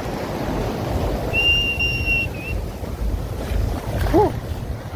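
Sea surf washing and foaming around the legs in shallow water, a steady rush with heavy low rumble on the phone microphone. A single steady high whistle note sounds for about a second just over a second in, and a short voiced call comes near the end.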